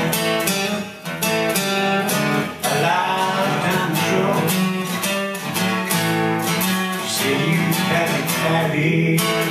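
Music: a man singing a slow blues-gospel song over his own strummed acoustic guitar.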